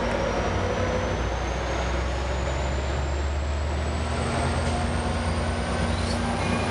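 Diesel-hauled Amtrak passenger train, led by an F59PHI locomotive, rolling past with a steady low rumble. A faint high whine climbs slowly in pitch throughout.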